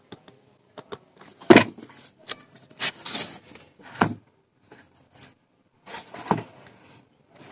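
A box and its packaging being handled and opened: irregular knocks, taps and rustles.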